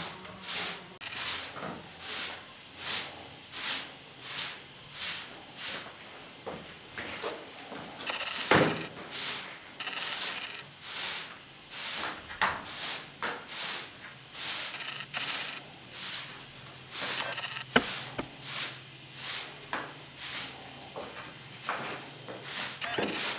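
Short-handled straw broom sweeping a tiled floor in regular swishing strokes, about three every two seconds, with one harder stroke about eight seconds in.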